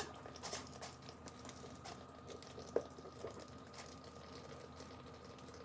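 Faint water running from a Samsung refrigerator's door dispenser, flushing the newly installed water filter, over a steady faint hum.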